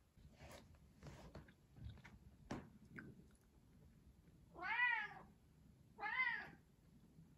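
Bengal cat meowing twice, about a second and a half apart, each a short call that rises and falls in pitch. A few soft knocks come before the meows.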